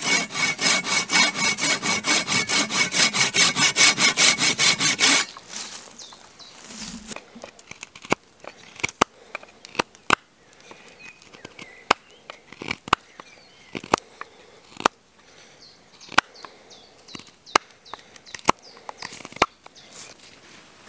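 A blade cutting dry wood for a tent peg: rapid, even back-and-forth strokes, about five a second, for the first five seconds. Then the strokes stop and give way to sharp separate cuts and taps about a second apart as the peg is carved.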